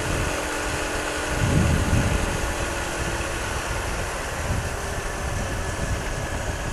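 Suzuki Shogun SP 125 cc motorcycle cruising at road speed, its engine running steadily under the rush of wind on a bike-mounted microphone. A brief louder swell about one and a half seconds in.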